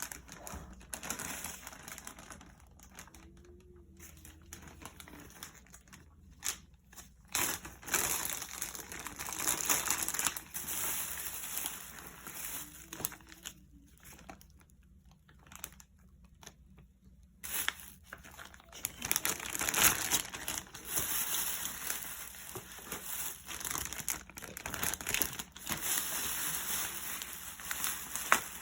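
Plastic crinkling and rustling as it is handled while chicken wings are prepared, in irregular spells with short quiet gaps, loudest near the two-thirds mark.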